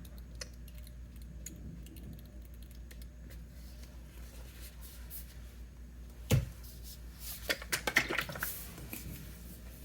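Plastic paint bottles and cups handled while pouring acrylic paints: one sharp knock about six seconds in, then a quick run of small clicks and rattles, over a low steady hum.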